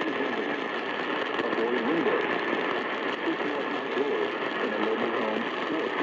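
AM radio receiver tuned to 950 kHz, playing a weak broadcast: a voice talking, buried under heavy static and a steady whine.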